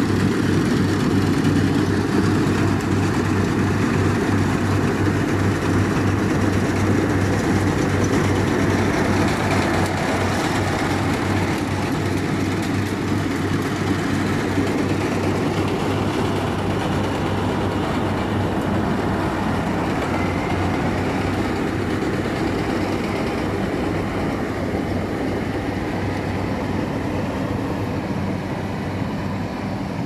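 Rice combine harvester running steadily while cutting rice: a continuous engine hum with a pulsing low beat under a broad mechanical clatter, gradually fainter as the machine moves away.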